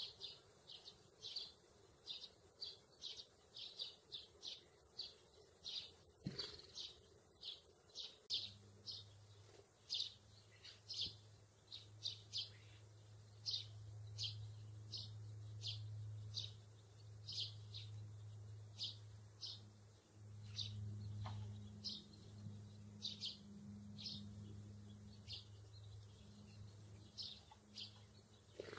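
Sparrows chirping: a long series of short, high cheeps, a little more than one a second, with a low steady hum in the background from about eight seconds in.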